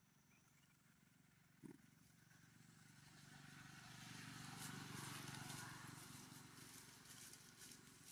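An engine passing by: a steady low hum that swells to its loudest about five seconds in and then fades away.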